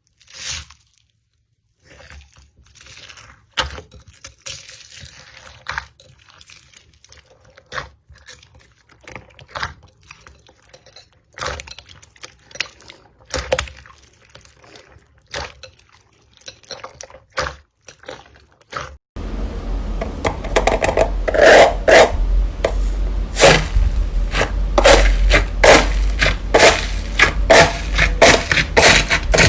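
Slime being squeezed and pressed by hand: scattered sticky clicks and small crackles. About two-thirds of the way through it switches abruptly to a much louder, dense run of crackling and crunching.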